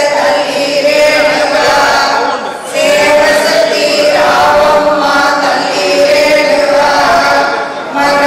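Voices chanting a devotional hymn together before a goddess idol, in long held phrases with short breath pauses about two and a half seconds in and again near the end.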